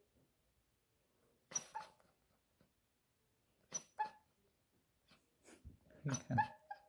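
Sleeping puppy whimpering in a dream: short, high cries in pairs about two seconds apart, the last pair trailing into a thin drawn-out whine.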